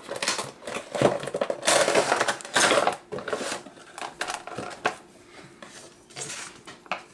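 A cardboard toy box with a clear plastic insert being opened and handled: irregular rustling, crinkling and scraping of cardboard and plastic, loudest in the first three seconds and quieter after.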